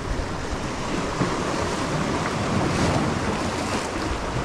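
Surf washing against jetty rocks, with wind buffeting the microphone; the wash swells a little in the middle.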